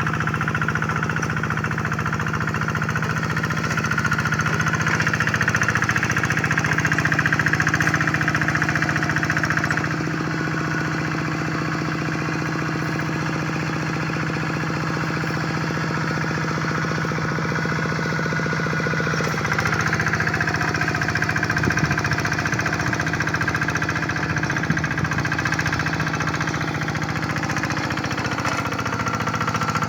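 Hand tractor's single-cylinder diesel engine running steadily with a fast knocking chug as it ploughs a rice paddy. Its note shifts about ten seconds in and again near twenty seconds.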